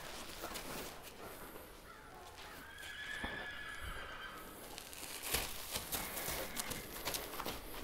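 A horse whinnies once, a held call of about a second and a half starting about two and a half seconds in, followed later by a few scattered hoof steps.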